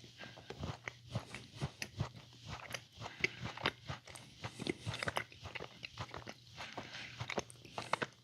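A person chewing and biting food with steady, irregular crunching, many small crackling clicks a second.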